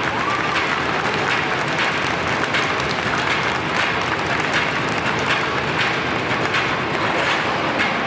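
Audience applauding steadily, a dense run of many overlapping claps.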